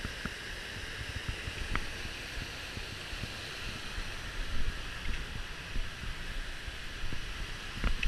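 Steady rushing of a waterfall and river rapids, with low buffeting on the microphone and a few faint clicks.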